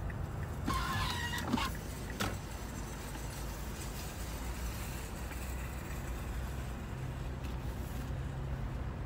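Steady low rumble of a car or road traffic, with a brief clatter of higher-pitched sounds about a second in and a single knock about two seconds in.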